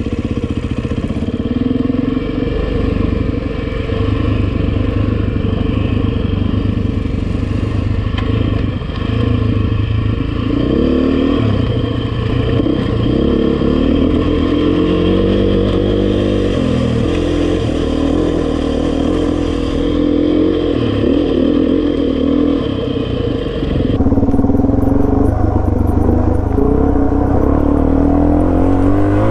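Dirt bike engine running under way on a rocky trail, recorded on the bike itself; the revs rise and fall again and again as the rider works the throttle, and it gets louder near the end.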